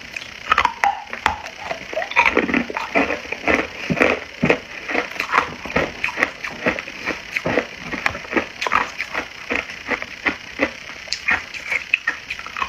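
Close-miked crunching of hard clear ice being bitten and chewed, a fast irregular run of sharp cracks and crunches with no pause.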